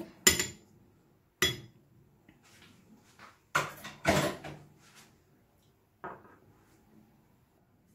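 A metal spoon knocking and clinking against a bowl a few separate times, spaced a second or more apart, while mayonnaise is spooned onto yogurt.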